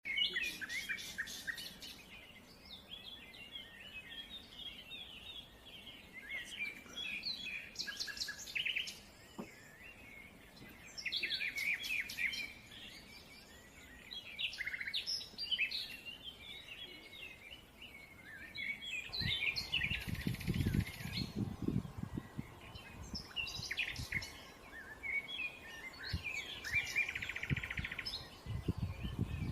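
Birds chirping and twittering in quick, high calls. A low rumble joins about two-thirds of the way through.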